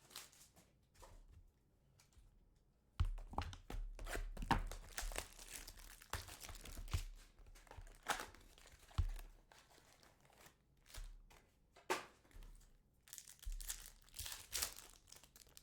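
A trading card pack's wrapper being torn open and crinkled, with the cards handled. After about three seconds of quiet it becomes a run of sharp crackles and rustles, with a few dull knocks.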